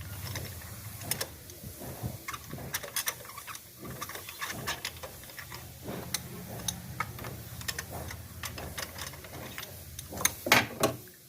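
Ratchet wrench clicking and tool clinks as a spark plug is unscrewed from a Maruti Alto K10's cylinder head, with a few louder knocks near the end.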